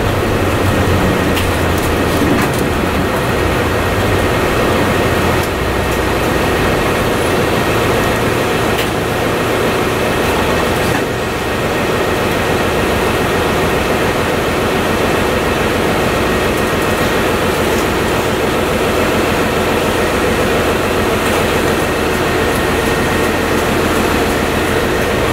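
1998 Mitsubishi Fuso Aero Midi MK (KC-MK219JVF) city bus under way, heard from inside the passenger cabin: steady diesel engine and drivetrain noise over road rumble, with a faint steady high whine.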